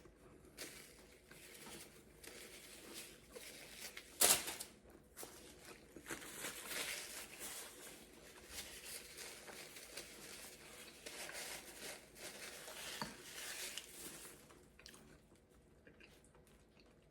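Close-up eating sounds. A sharp crunchy bite about four seconds in, then wet chewing of a tortilla-wrapped quesadilla or burrito.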